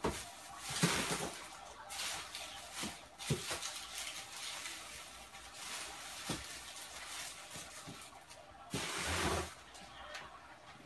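Kitchen handling noises: a few light knocks, with a short swishing burst about a second in and another near the end.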